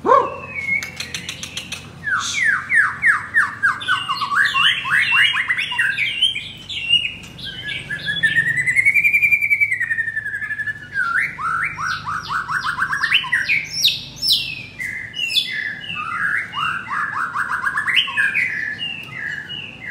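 Male white-rumped shama (murai batu) singing a long, varied song: quick runs of falling whistled notes, sharp clicking notes near the start, and one long whistle that rises and then falls about eight seconds in.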